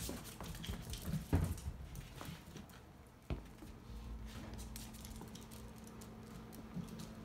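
Light pattering and clicking of a grey fox's paws and claws on a hardwood floor as it plays with a ball, with two louder thumps about a second and three seconds in.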